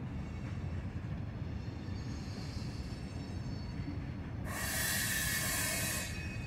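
Freight cars rolling slowly through a rail yard: a low, steady rumble of wheels on rail. About four and a half seconds in, a loud hiss rises over it for about a second and a half, then stops.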